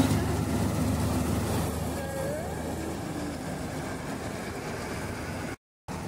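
Nazar 930 combine harvester running steadily with a low engine hum while it cuts standing wheat, loudest at the very start and then settling to an even level.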